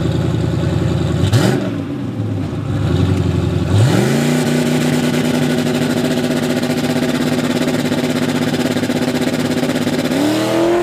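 Drag car's engine idling unevenly, blipped once, then brought up and held steady at high revs for about six seconds as it stages at the line. Near the end the revs climb again as it launches.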